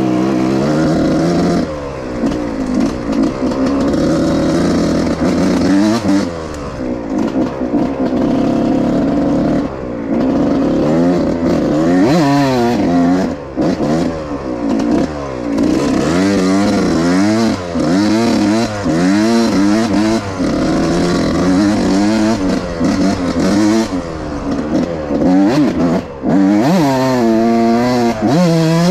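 Suzuki RM 125 single-cylinder two-stroke motocross bike ridden hard, its engine revving up and dropping back over and over as the rider works the throttle and gears.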